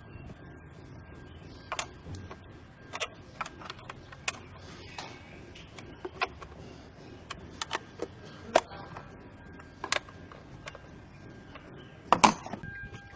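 Irregular sharp clicks and clacks of hand tools and parts being handled, with a louder clatter near the end. A faint steady high tone runs underneath.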